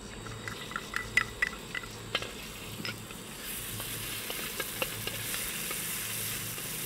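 Crushed garlic frying in a little hot oil in a wok and being stirred with a wooden spatula. Light clicks and scrapes of the spatula on the pan come in the first half, then a steady sizzle builds from about halfway in.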